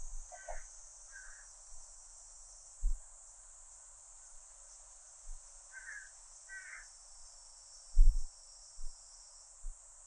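Steady high-pitched cicada chorus, with four short bird calls and a few dull low thumps, the loudest about eight seconds in.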